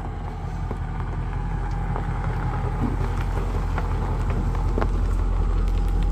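Ford Shelby Mustang GT350R's flat-plane-crank V8 running at idle just after being started, a steady low engine note that grows slowly louder.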